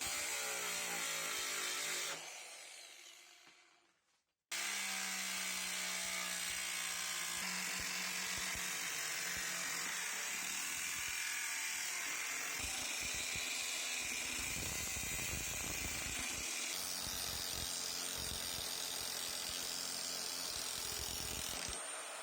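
A small electric power tool of the drill type running at speed. It winds down with a falling pitch about two seconds in, stops briefly, then runs steadily again from about four and a half seconds.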